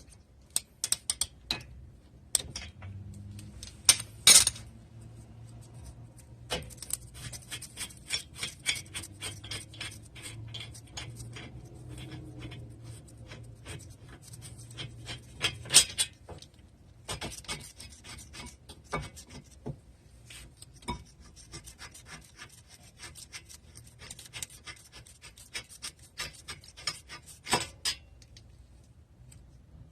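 Quick rasping, rubbing strokes of a hand tool on the metal brake parts, in two long runs, with a few louder sharp knocks, the biggest about four seconds in and about halfway through.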